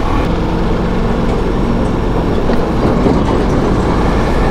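Ducati Multistrada V4S's 1158 cc V4 engine running steadily while the bike cruises at road speed, under a heavy rumble of wind noise.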